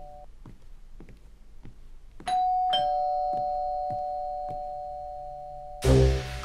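Doorbell chime ringing a two-note ding-dong, the second note about half a second after the first, both notes ringing on and slowly fading for about three and a half seconds. Footsteps on a hard floor, about one every half second, are heard before and under the chime. Loud music cuts in near the end.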